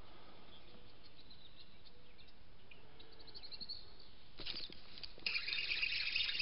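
Faint outdoor ambience with small bird chirps, then from about four and a half seconds a scratchy rustling that gets louder about a second later, as the handheld camera is moved.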